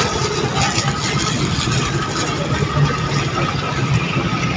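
Engines idling with a steady low rumble and a faint steady whine above it, with voices in the background.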